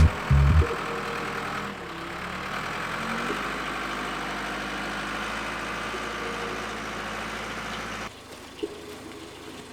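A vehicle engine running steadily, after a few heavy thumps at the very start; the engine sound drops away about eight seconds in.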